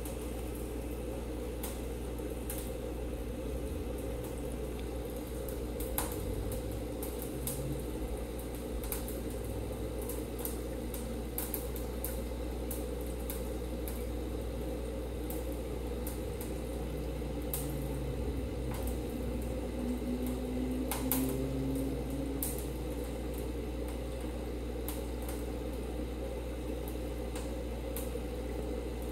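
Aquarium equipment running: a steady low hum with bubbling water from the air line, and scattered small pops or clicks.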